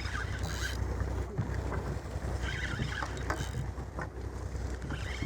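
Fishing boat's engine running with a steady low hum, with wind and water noise over it and a few faint ticks.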